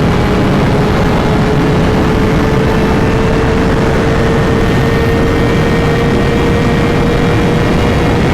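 Kawasaki 636 sport bike's inline-four engine pulling hard at high revs at very high speed, its pitch climbing slowly and steadily, under heavy wind rush.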